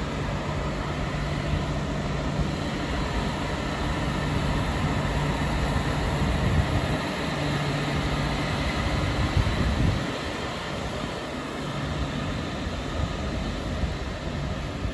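Renfe class 106 (Talgo Avril) electric high-speed train at the platform: a steady low hum over a broad rumble, swelling a little in the middle and easing about ten seconds in.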